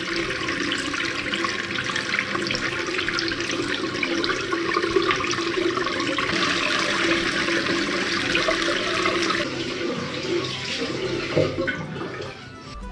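Water running steadily from a bathroom sink's mixer tap onto socks and underwear being hand-washed in the basin, with splashing as the clothes are worked under the stream. The flow sound thins about three-quarters of the way through and dies down near the end.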